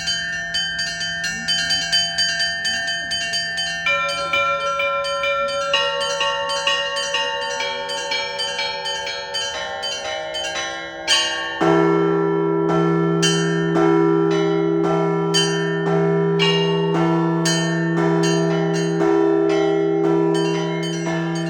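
Russian Orthodox church bells being rung by hand: small bells are struck in a quick rhythm, several strokes a second, over a low ringing tone. About twelve seconds in, a large, deep bell comes in loudly and is struck about once a second under the quick chime of the smaller bells.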